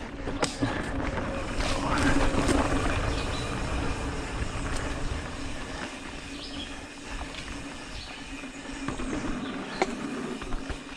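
Mountain bike rolling fast along a dirt singletrack: a steady rush of tyre and wind noise with a low rumble, and scattered sharp rattles and clicks from the bike over bumps.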